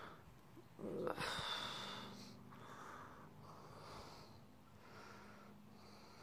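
Breathing close to the microphone: a louder snort-like breath about a second in, then soft breaths roughly once a second, over a faint steady hum.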